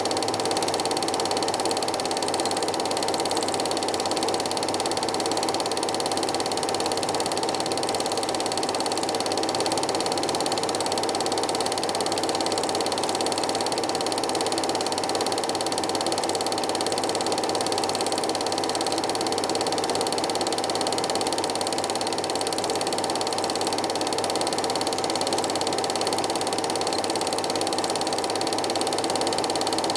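Cine film projector running steadily: an even mechanical noise with a constant hum that does not change.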